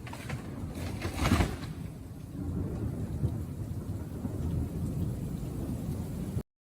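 Storm noise: a steady low rumble with rain-like hiss, and a loud crack about a second in, like a thunderclap. The sound cuts off abruptly near the end.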